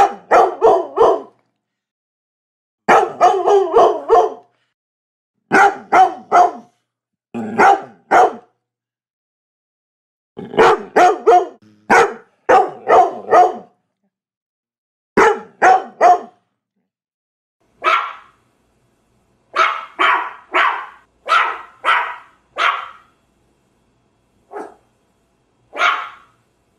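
German Shepherd barking in volleys of two to about seven quick, sharp barks, with short stretches of silence between them. Toward the end the barks come singly or in small groups and sit higher in pitch.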